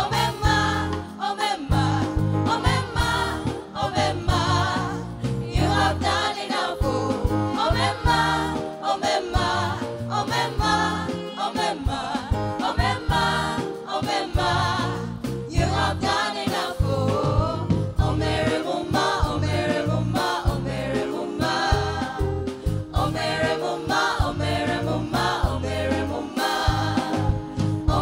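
Gospel praise team of several singers singing together into microphones, backed by a live band with a pulsing bass line.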